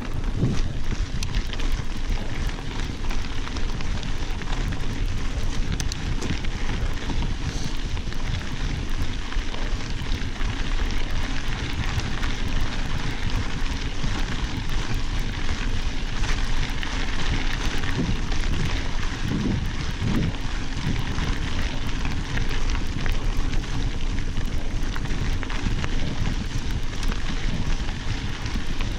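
Mountain bike rolling along a gravel dirt road: steady crackling crunch of knobby tyres on loose gravel, with wind rumble on the microphone.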